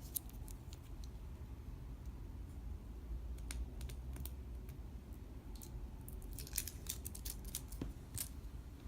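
Slime being squeezed and worked by hand, giving irregular sharp clicks and small pops, in clusters near the start and again about six to eight seconds in.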